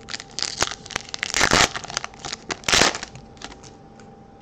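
Foil wrapper of a 2018 Topps Chrome baseball card pack crinkling and tearing open by hand, with two loudest rips about a second and a half and nearly three seconds in.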